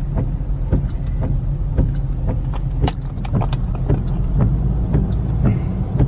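Car moving slowly in highway traffic, heard from inside the cabin: a steady low rumble of engine and road noise, with scattered short clicks throughout.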